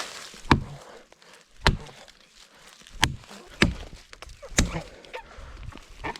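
Footsteps through the woods: heavy, sharp steps on the forest floor about once a second, unevenly spaced.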